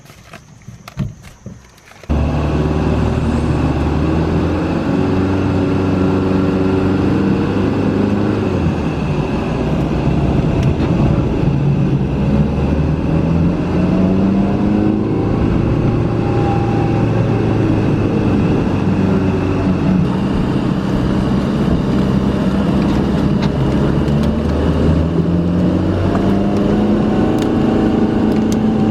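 Van engine heard from inside the cabin while driving, its pitch rising and falling with throttle and gear changes. It comes in suddenly about two seconds in and then runs loud and steady.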